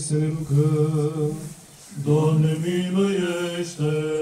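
Men singing Orthodox liturgical chant a cappella, in long held notes with a short pause for breath about two seconds in.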